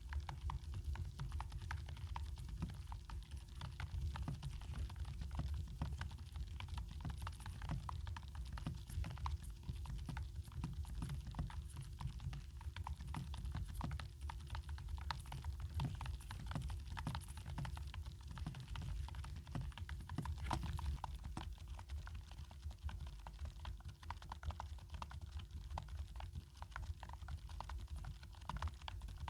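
Typing on an ABKO NTP84 low-profile membrane keyboard, sold as low-noise: a steady stream of soft, rapid keystroke clicks.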